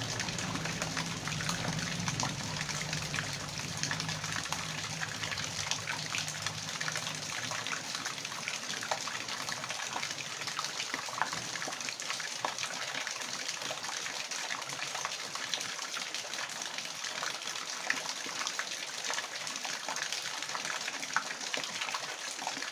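Water rushing and splashing steadily, with many small drip-like ticks throughout. A low hum under it fades out in the first several seconds.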